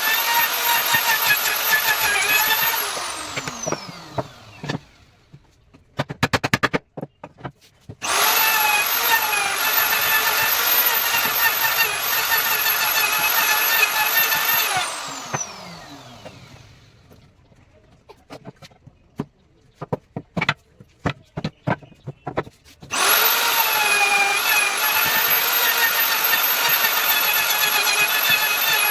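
Handheld electric power tool running at high speed with a steady whine. It is switched off twice and coasts down in falling pitch, about 3 and 15 seconds in. In each pause there is a run of sharp taps and knocks, and the tool starts again at full speed about 8 and 23 seconds in.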